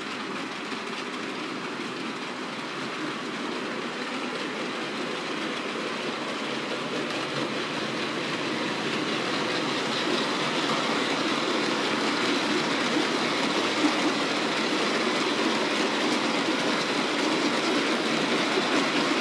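Hornby OO gauge Class 56 model diesel locomotive and its train of hopper wagons running along the model railway track, growing steadily louder as it comes closer and passes.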